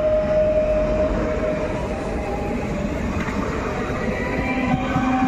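PESA Elf EN64 electric multiple unit passing at close range, with the steady rolling noise of its wheels on the rails.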